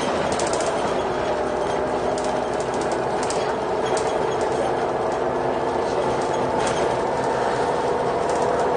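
Renault Agora L articulated city bus driving, heard from inside the passenger cabin: a steady engine and transmission drone with a held whine and light rattles from the interior.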